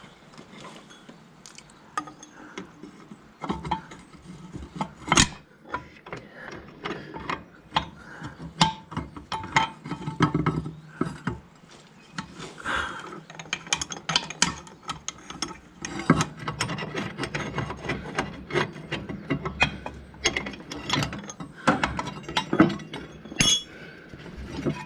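Irregular metallic clicks, clinks and scrapes of hand tools and tractor brake-linkage parts being handled and worked into place.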